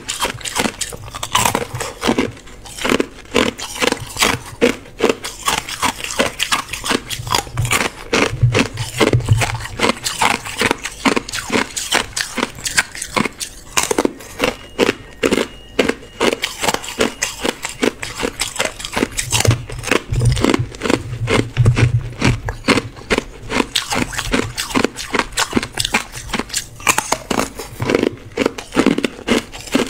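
Hard ice cubes dipped in matcha powder being bitten and chewed close up, a rapid, unbroken run of sharp cracks and crunches, several a second.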